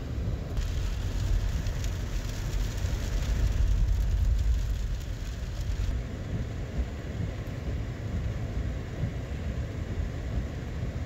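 Steady low rumbling background noise, with a hiss added from about half a second in until about six seconds in.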